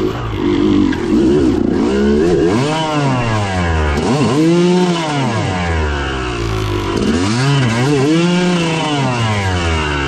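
A Yamaha dirt bike's engine revving up and down on a steep rocky slope, in several swells that each rise and fall in pitch.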